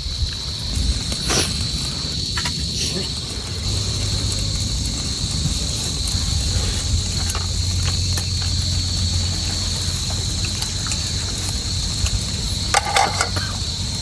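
Insects trilling steadily in one high, even tone over a low rumble of wind on the microphone, with a few faint clicks about a second in and again near the end.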